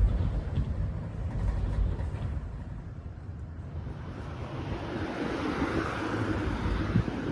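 Typhoon wind gusting, with a heavy low rumble of wind on the microphone; a gust swells into a louder rushing hiss about halfway through, and there is one short knock near the end.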